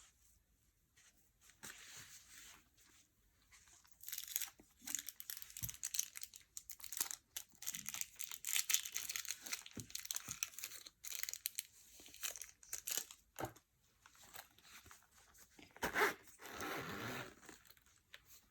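Packaging being handled and opened by hand: crinkling and tearing, with sharp clicks and a short rasping tear near the end.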